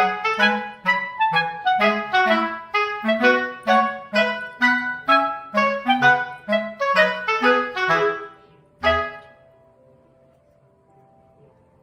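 Background music: a bouncy tune of short, separate notes that ends about nine seconds in on a final note, leaving only a faint fading tail.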